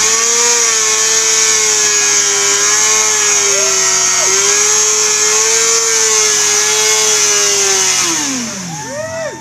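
Yamaha R1 and Kawasaki Ninja sport bike engines held at high revs in a burnout, the note holding steady with small dips, over a strong steady hiss from the spinning rear tyres. About eight seconds in the revs drop away and the sound falls off, followed by a short rev blip.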